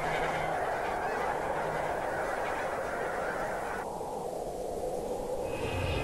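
A flock of geese calling as they take flight: a dense chorus of many overlapping honks, thinning out about four seconds in.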